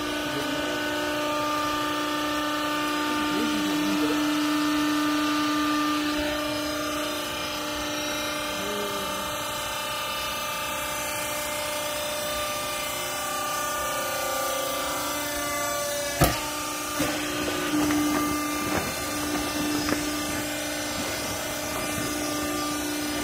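Vertical hydraulic clothes baler running: its motor and hydraulic pump give a steady hum with a clear constant pitch. About 16 seconds in there is a sharp knock, then a few lighter knocks.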